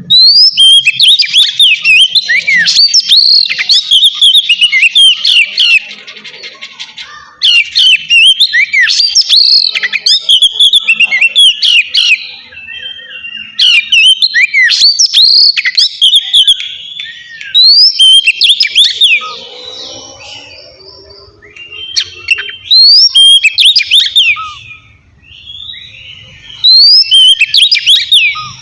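Oriental magpie-robin (kacer) singing its loud ngeplong song: bouts of rapid whistled notes that swoop up and down, with short pauses between the bouts.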